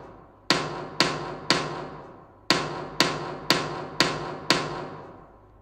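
Drum-like percussion hits at an even two per second, each ringing briefly. They play the rhythm exercise of quarter notes and quarter rests: a rest, three hits, a rest, then five hits and a final rest.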